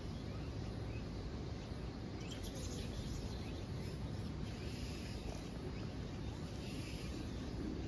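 Steady outdoor background hiss with a few faint, short chirps scattered through it.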